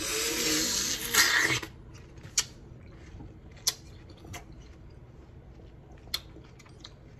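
A bite into a slice of watermelon: a loud, wet crunch in the first second and a half. Then quiet chewing with scattered small mouth clicks.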